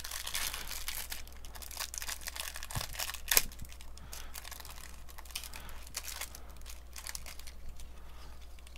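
Clear plastic wrapping crinkling and tearing as it is peeled off a small stack of trading cards, with one sharp crack about three and a half seconds in.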